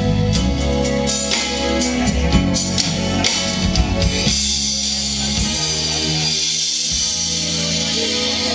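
Live band playing through the PA at a sound check: drum kit with cymbal and drum hits over sustained bass and guitar notes, the drumming busiest in the first half.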